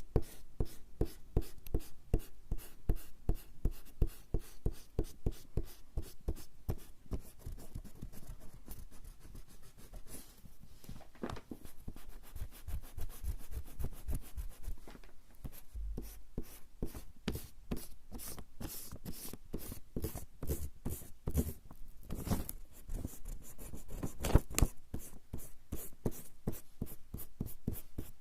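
Rubber eraser rubbed back and forth on coarse straw paper (warabanshi): a steady run of quick scratchy strokes, several a second, easing off for a few seconds midway before picking up again.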